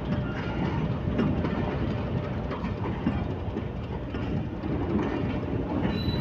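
Passenger train coaches rolling past at close range: a steady rumble of wheels on rails with clattering from the running gear.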